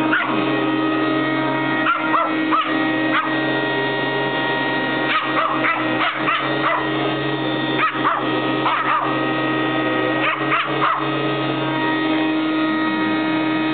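A small morkie dog barking and yipping in short bursts at a running vacuum cleaner, whose motor gives a steady hum underneath.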